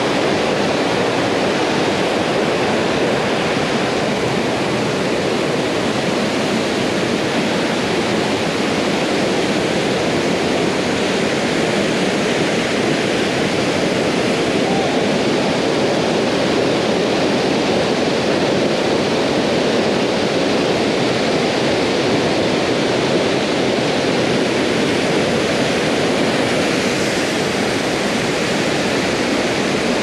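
Waterfall pouring into its pool, a loud, steady rush of falling water; the fall is running high with a lot of water.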